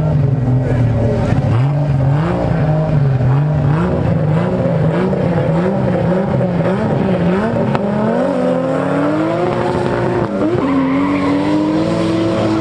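Two drag cars, a BMW E30 and a Subaru Impreza WRX, revving on the start line with the engine pitch bouncing up and down. About eight seconds in they launch and accelerate hard, the engine pitch rising steadily, with a short drop near ten seconds at a gear change.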